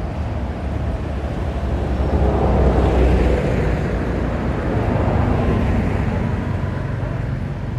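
A motor vehicle passing: a rumbling, noisy sound that swells to its loudest about three seconds in, then fades away.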